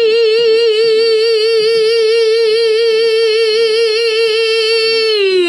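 A woman's voice singing unaccompanied, holding one long note with a steady vibrato; near the end the note slides down in pitch and stops.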